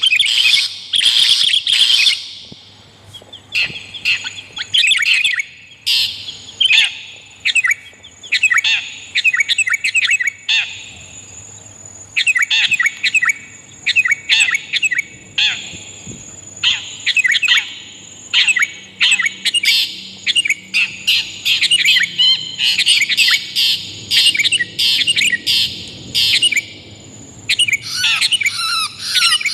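Bird-lure recording of long-tailed shrike (cendet) calls mixed with sooty-headed bulbul (kutilang) calls: bouts of rapid, harsh, squawky chirps with short pauses between them. A thin, steady high tone runs through the middle stretch.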